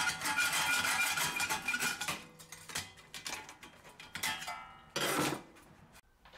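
Hacksaw cutting a thick steel plate between its drilled holes, the plate ringing with each stroke. The strokes come fast for about two seconds, then turn sparse, with one louder stroke about five seconds in.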